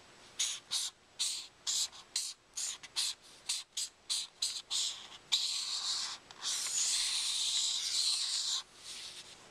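Black felt-tip marker drawing on paper: a run of short scratchy strokes, about three a second, then two long continuous strokes from about five seconds in.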